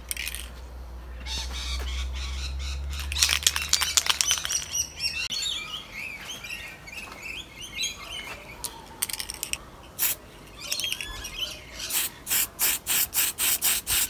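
Aerosol can of Tamiya spray paint hissing, first in a longer pass and then in a quick run of short bursts, about three a second, near the end. Birds chirp and twitter in between, about a third of the way in.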